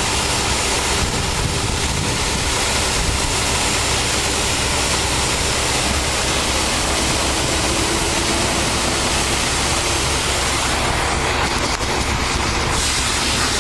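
Pressure washer running, its wand spraying a steady high-pressure stream of water onto pavement, with a steady low hum underneath.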